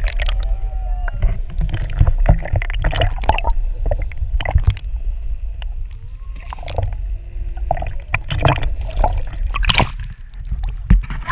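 Water sloshing and gurgling around an action camera held at or under the surface, with a steady low rumble and irregular splashes and clicks. A few faint tones that bend in pitch sound through the water noise.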